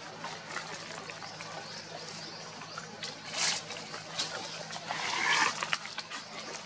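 Macaques moving over dry leaf litter, with a brief rustle about three and a half seconds in and a short animal call about five seconds in, over a steady low hum.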